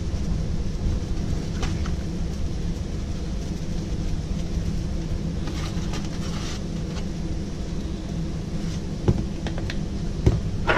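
A steady low hum runs throughout. Over it, black pepper is shaken from a shaker for about a second, starting about five and a half seconds in. Near the end come a few light knocks of a hand and shaker against an aluminium sheet pan.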